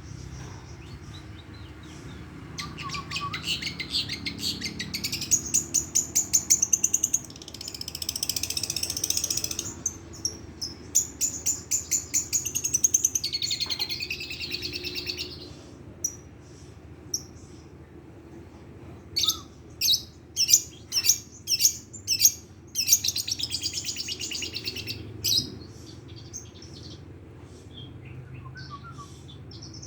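Long-tailed shrike (cendet) singing: long runs of fast, rolling trills of rapidly repeated high notes, several seconds each, with a string of loud, separate sharp notes about two-thirds of the way through.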